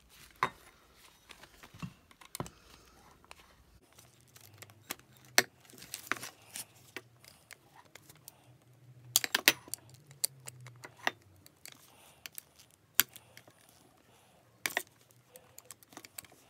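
Irregular clicks, taps and small knocks of a lamp's metal shade and plastic lampholder being handled and worked with a screwdriver, with a quick run of clicks about nine seconds in.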